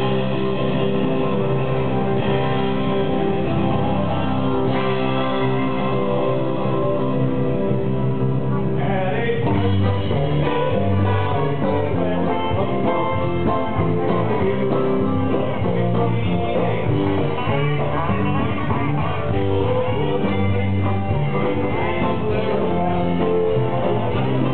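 Live band playing electric guitars and drums, with singing.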